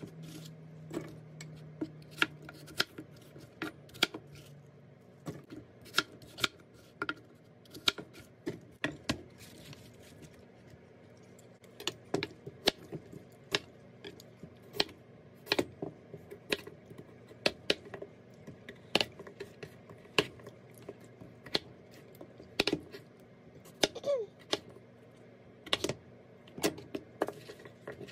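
Chef's knife chopping apples and sweet potato on a plastic cutting board: a string of sharp, irregular knocks, about one or two a second, as the blade strikes the board.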